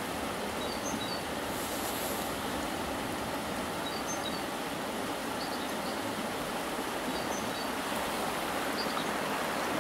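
Steady rushing of a mountain stream's running water, with a few faint high chirps scattered through it.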